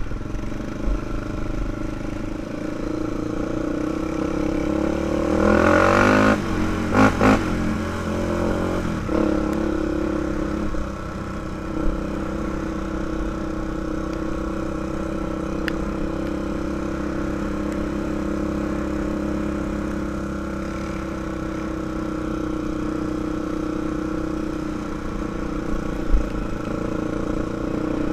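2005 Honda 400EX ATV's single-cylinder four-stroke engine running while riding, revving up and back down about six seconds in with a couple of sharp knocks, then holding a steady pitch.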